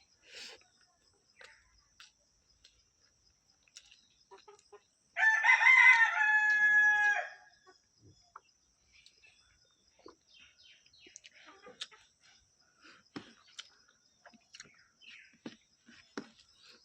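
A rooster crows once, a single pitched call lasting about two seconds, starting about five seconds in. Faint scattered clicks and ticks come before and after it.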